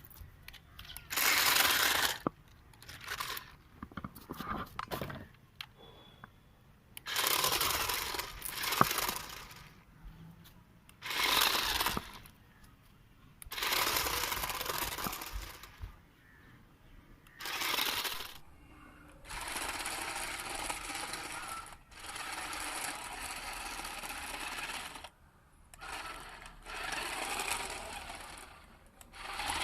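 Toy RC rock crawler's small electric motor and gearbox whirring in short bursts of a second or two as it is driven, then running for longer stretches in the second half.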